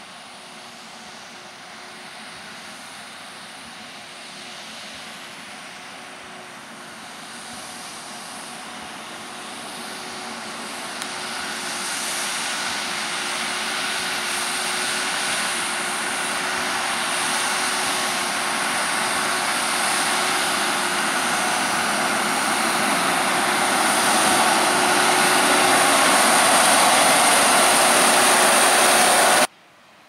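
JCB Fastrac 4220 tractor and Krone BiGPack big square baler working through straw, the engine and baler running steadily and growing louder as they come closer. Just before the end the sound drops suddenly to a much quieter level.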